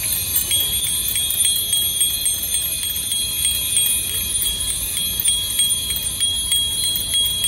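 Many bicycle bells ringing at once from a crowd of cyclists: a continuous jangle of high bell strikes.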